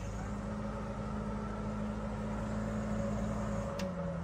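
Tractor engine running at a steady speed, its pitch dropping slightly near the end, with a single sharp click at the same moment.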